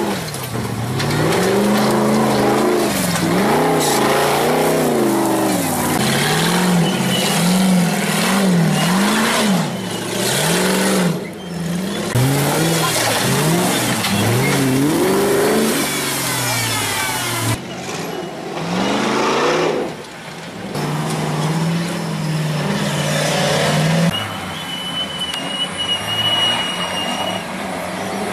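Off-road 4x4 racing prototypes' engines revving hard in repeated bursts, pitch climbing and dropping again and again as they crawl and power over rocks and up a steep slope.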